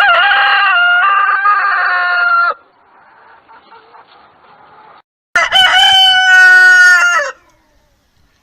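A rooster crowing twice, each crow about two seconds long. The second crow comes about three seconds after the first and drops in pitch at its end.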